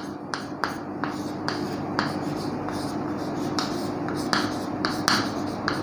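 Chalk writing on a chalkboard: a string of irregular sharp taps and short scratches as the words are chalked, over a faint steady hum.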